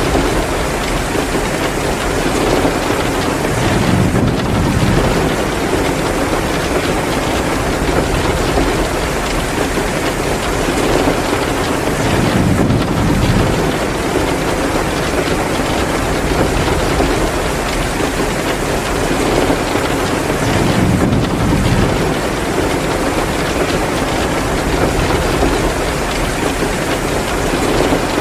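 Heavy rain pouring down in a steady downpour, with low rumbles swelling and fading about every eight or nine seconds.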